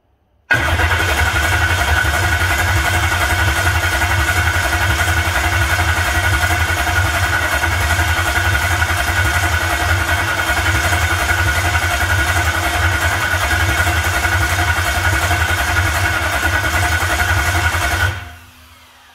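A motor running steadily with a low pulsing note while the 6.0 Powerstroke's high-pressure oil system is primed. It starts suddenly about half a second in, then cuts off near the end and winds down briefly.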